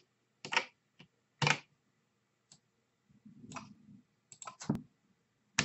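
Computer mouse and keyboard clicks: a series of separate short clicks, irregularly spaced about half a second to a second apart.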